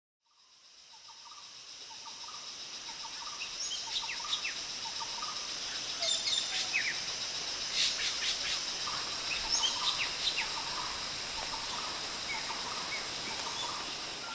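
Several wild birds chirping and calling, short high notes and lower brief calls scattered over a steady outdoor hiss. The sound fades in over the first couple of seconds and fades out near the end.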